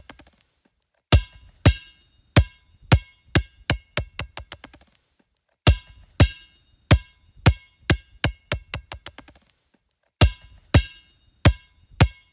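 A basketball dropped three times on a hard surface; each time it bounces with quicker, quieter bounces until it settles. Each bounce has a short ringing ping.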